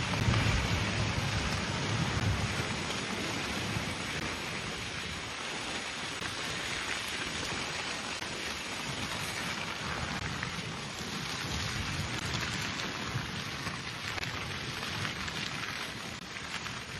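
Vegetation fire burning, a steady dense crackling and hissing. Low wind rumble on the microphone in the first couple of seconds.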